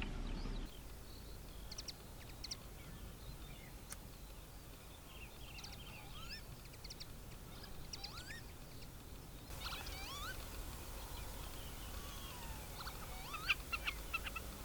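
Several wild birds calling and singing at once: overlapping chirps, trills and rising whistles, with a cluster of sharp calls near the end.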